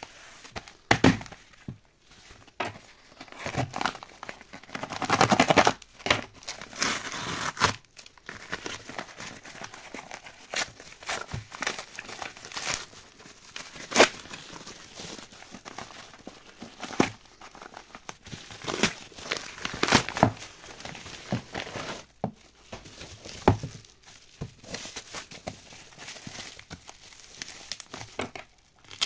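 Packaging being handled and opened by hand: irregular crinkling and rustling, with sharp crackles and snaps and a few tearing sounds.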